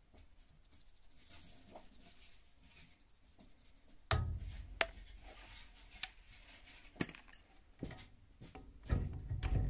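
Kan-therm brass fitting on a white PEX pipe clicking and clinking against a chrome manifold outlet as it is pressed on by hand with a slight press fit and taken off again: a handful of sharp clicks and knocks, the first about four seconds in, some with a low thump.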